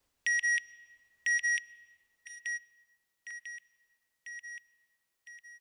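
Electronic double beeps in a steady rhythm: six pairs about a second apart, each a high, pure-sounding tone, fading a little with each pair.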